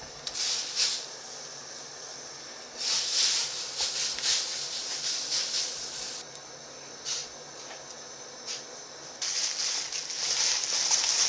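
A silicone spoon stirring soybean paste (doenjang) into hot water in a pot, in short swishing spells, then a plastic bag rustling for the last couple of seconds.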